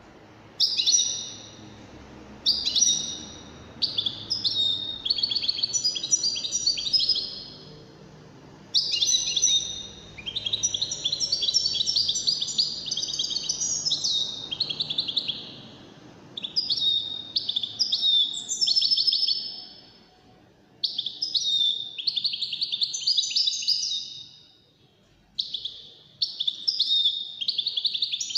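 A caged European goldfinch of the Moroccan wediani type singing. Its phrases of rapid twittering, trilled notes come in bursts separated by short pauses, and it breaks into a long unbroken run of song about nine seconds in.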